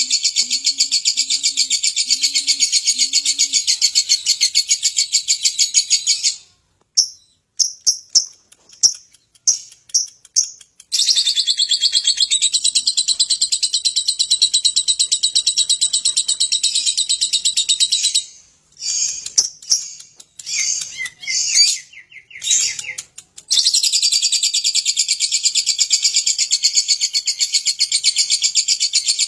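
Lovebird singing its long ngekek: a fast, high, continuous chatter held for several seconds at a time. It breaks off twice into short stuttering bursts with gaps, at about 7–11 seconds and 19–23 seconds, before running on unbroken again.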